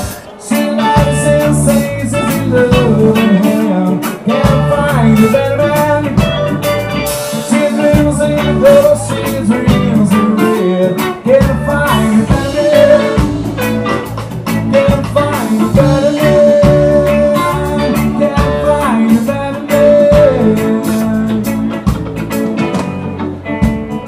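Live rock band playing electric guitar, bass guitar and drum kit, with a lead line holding long notes that slide down now and then.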